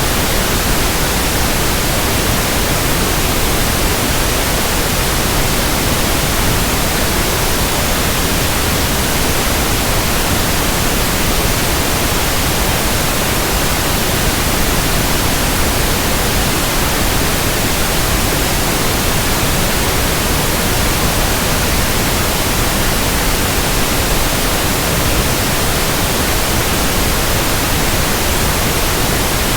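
Steady pink noise: an even, unchanging hiss spread across all frequencies, played as a tinnitus sound-matching sample.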